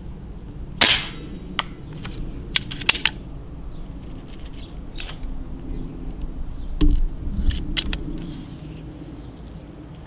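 Stoeger XM1 S4 Suppressor 4.5 mm PCP air rifle firing two suppressed shots, each a short muffled crack, about six seconds apart. A few sharp clicks follow each shot.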